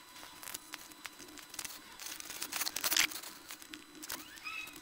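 Faint clicks and crackling rustle from soldering small wires onto a flight-controller board with a soldering iron, with a louder rustle about three seconds in, over a faint steady hum.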